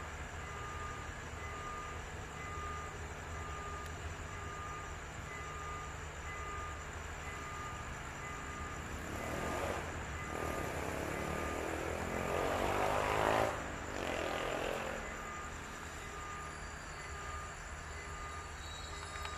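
Diesel locomotive passing close by with a steady low rumble, swelling to its loudest about thirteen seconds in and then dropping away sharply. A level-crossing warning bell rings on throughout, about two beeps a second.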